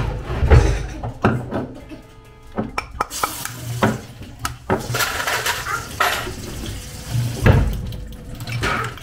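Kitchen tap running into a stainless-steel sink as lettuce leaves are rinsed under it, starting about three seconds in. Knocks and clatter of dishes and utensils around the sink, with heavy thumps near the start and again toward the end.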